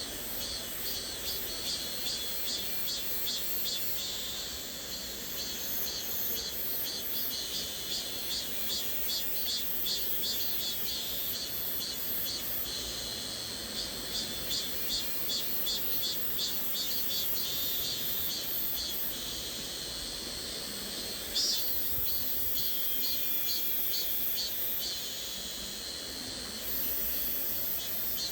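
High-pitched cicada buzz pulsing in a regular wave pattern over the steady rush of a flowing stream, used as a tinnitus masking sound. One brief click about three-quarters of the way through.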